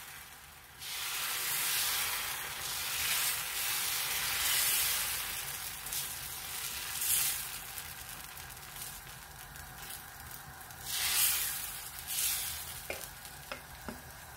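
Dosa batter sizzling on a tawa heated at full flame as the back of a ladle spreads it in circles over the pan. The sizzling hiss swells and fades several times.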